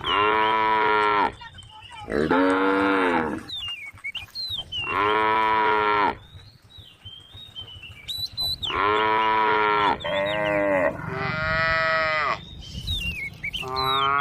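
Cows mooing: about seven long calls, each lasting a second or so, with short gaps between them. Faint thin high chirps come in the pauses between calls.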